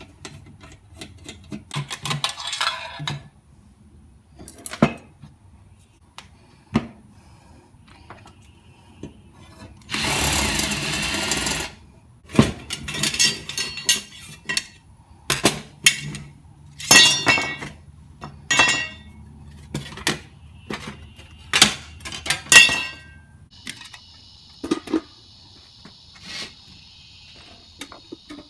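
Cordless drill running in a short burst about ten seconds in, drilling out the aluminium rivets of a perforated metal roaster drum, amid many sharp clanks and clinks of metal parts and tools being handled. A steady high whine sounds for a few seconds near the end.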